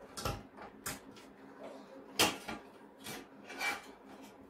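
Handling noise from a computer power supply (SMPS) being reassembled: its circuit board and sheet-metal case knock and scrape together in about five short clatters and rubs, the loudest about two seconds in.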